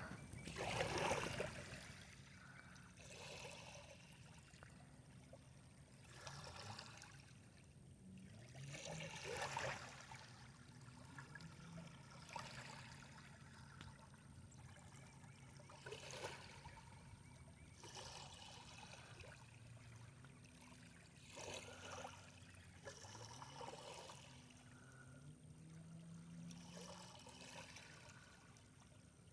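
Small lake waves lapping and splashing at the water's edge, a soft wash every two to three seconds, with a faint low hum underneath.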